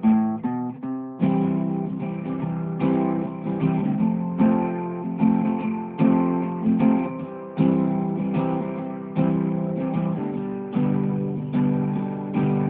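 Guitar music: a few quick plucked notes, then a steady strummed rhythm from about a second in.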